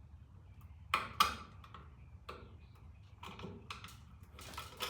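Small pliers clicking and tapping against a screw on an electrical outlet while it is worked loose: two sharp clicks about a second in, then scattered lighter ticks.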